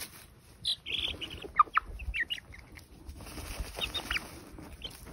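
Young chickens dust-bathing in loose soil: a string of short, rising peeping calls and soft clucks, over the rustle of feathers and dirt as the birds wriggle and flap.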